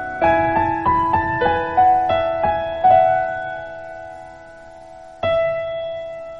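Background piano music: a quick string of struck notes over the first three seconds, then a single chord about five seconds in, left to ring and fade.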